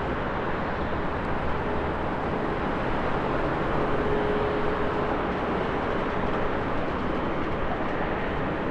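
Airbus A320-200's twin jet engines at takeoff power, heard as a steady rumble from a distance.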